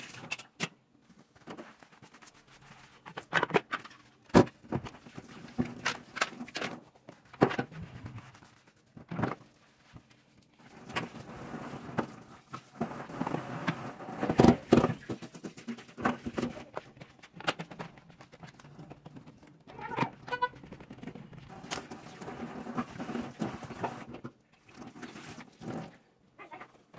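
Cleaning at a stainless steel kitchen sink: scattered knocks and clatters of a bowl and cleaning tools against the steel sink and granite counter, with stretches of running tap water and scrubbing.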